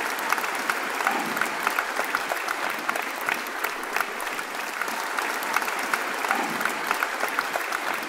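An audience applauding steadily: many hands clapping at once.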